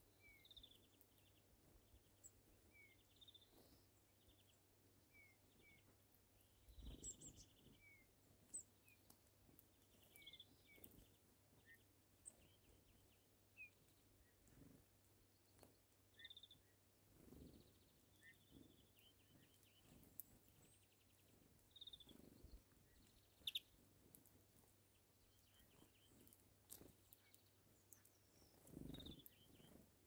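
Faint calls of small songbirds: short high chirps and brief falling notes at irregular intervals, with a few soft low thumps.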